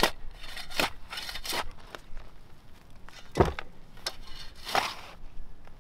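A pointed shovel cutting into dry, clumpy soil, a gritty scrape and crunch with each stroke. About five strokes come at uneven intervals, the one about three and a half seconds in the loudest.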